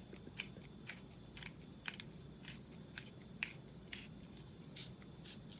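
Faint clicks and crunches, about two a second, from a twist-top coffee spice grinder being turned by hand, its grinding head working on the organic espresso spice.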